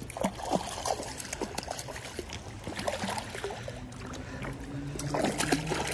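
A hooked brown trout splashing repeatedly at the surface of a shallow creek at the bank, over the steady sound of running water.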